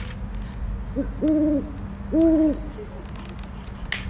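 Owl-like hooting: a short hoot about a second in, then two longer, steady hoots.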